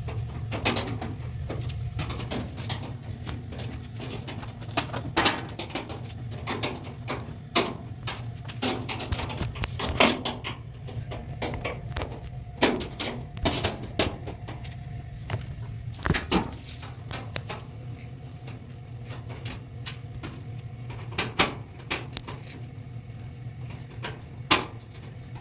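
Irregular clicks and knocks of screws being taken out of a washing machine's back cover, with tools and the metal panel handled, over a steady low hum.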